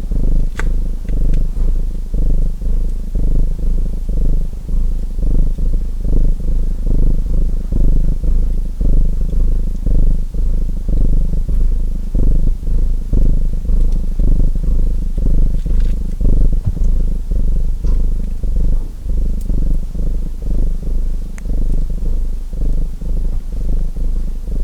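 Cat purring close up: a low, continuous rumble that swells and fades in a steady rhythm. A few faint crackles from a wood fire sound over it.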